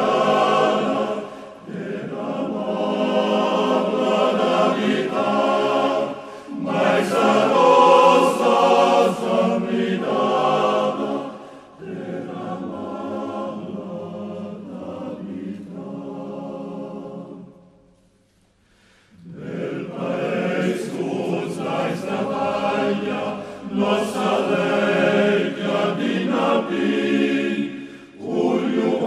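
Male-voice choir singing a Romansh choral song in full chords, phrase after phrase with short breaks between. About twelve seconds in the choir sings more softly, fades to a brief pause, and then comes back in at full strength.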